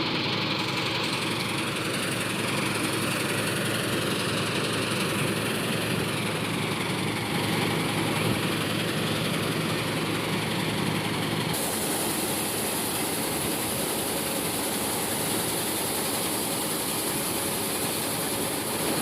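Diesel farm machinery engine running steadily, its sound shifting abruptly about two-thirds of the way through.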